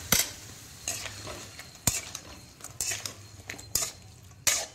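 A slotted steel spatula scraping and knocking against a metal kadai as yam pieces are stirred in thick masala, with irregular clatters, the loudest near two seconds in and again near the end. A faint sizzle runs underneath as a splash of water cooks off in the hot masala.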